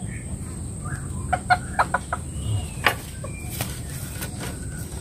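Serama chicken clucking several short times in quick succession, with a few sharp clicks from the trimming scissors.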